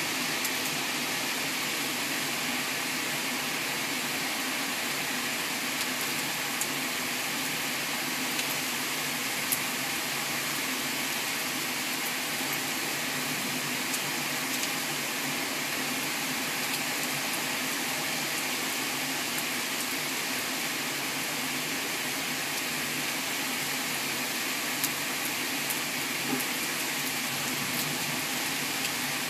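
Torrential rain pouring down in a steady, dense hiss that never lets up, with a few sharp taps here and there.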